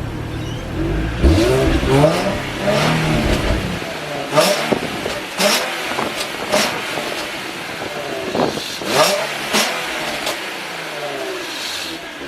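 2005 Nissan 350Z's VQ35DE V6 revving through HKS high-flow cats and a Z1 Y-pipe on the stock rear exhaust, which has a slight leak where the Y-pipe meets the warped stock piping. The pitch climbs and falls over the first few seconds, followed by several quick, sharp rev blips.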